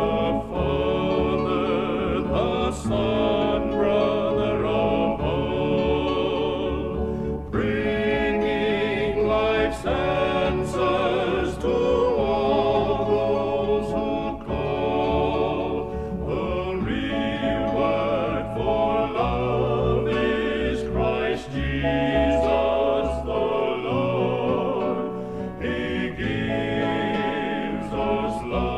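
Male gospel vocal quartet singing held close-harmony chords with vibrato, the phrases breaking briefly a couple of times.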